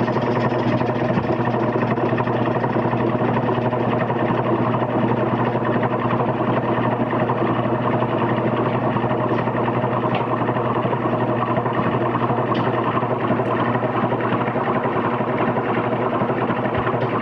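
Steady motor hum, even and unchanging, with a few faint ticks.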